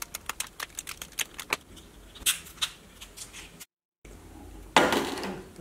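Small flush cutters snipping pieces and supports off a 3D-printed resin casting tree: a quick run of sharp clicks, several a second, with a few louder snaps in the middle. After a brief silence there is one louder noisy burst of handling sound near the end.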